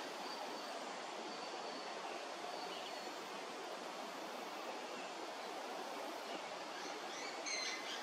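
Steady outdoor background hiss with faint, high bird calls: a few thin whistles early on and a short cluster of chirps about seven and a half seconds in.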